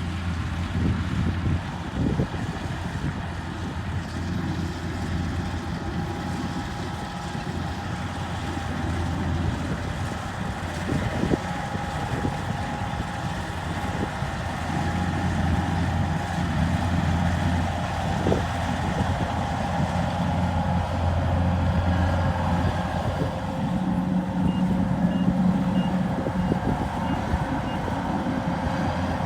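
A Kubota rice harvester's engine runs steadily under load while cutting rice, a constant low hum with a few knocks. Near the end comes a short run of faint, evenly spaced high beeps, like a warning alarm.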